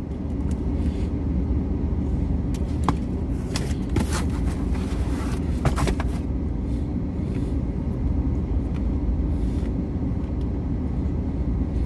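Steady low rumble of a truck's engine running, heard from inside the cab, with a few light clicks and rustles partway through.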